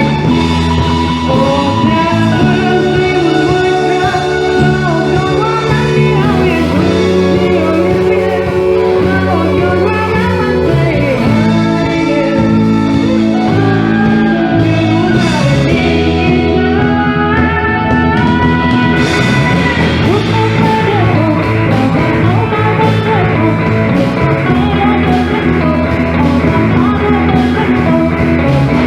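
A band playing a rock-style song, with a singing voice over guitar.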